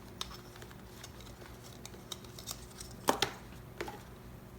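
Hands fitting small plastic intercom parts into a motorcycle helmet: scattered light clicks and taps, with two sharper clicks about three seconds in, over a faint steady hum.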